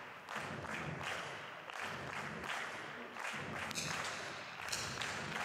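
Spectators clapping.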